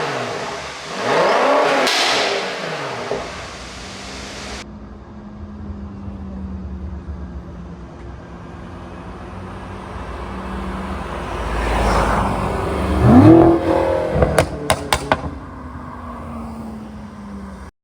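BMW F10 M5's twin-turbo V8 blipped twice in quick revs, then idling steadily. About two-thirds through it is revved once more and lets off into a quick string of sharp exhaust pops and crackles on the overrun, the sound of a pop-and-crackle ECU tune.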